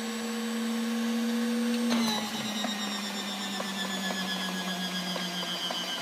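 Starter of an Allison engine whining and rising slightly in pitch. About two seconds in, it changes abruptly to a lower whine that slowly sinks in pitch, with regular faint clicks as the engine is turned over.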